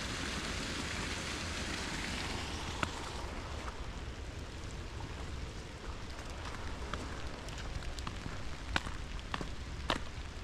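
Steady rain falling in woods, a hiss that eases after about three seconds, then scattered sharp taps that come more often toward the end.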